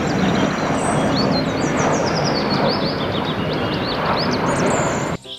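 Airliner's jet engines on landing approach: a steady, loud roar of engine noise that cuts off abruptly near the end.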